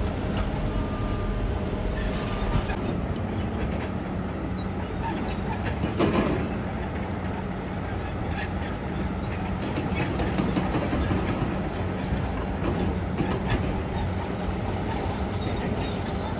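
Crawler bulldozer working on concrete rubble: a diesel engine running steadily under continual clanking and rattling, with a louder clatter about six seconds in.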